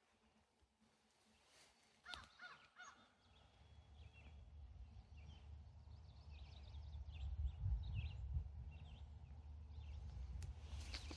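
Birds calling outdoors, a string of short calls, over a low rumble that grows louder from about four seconds in.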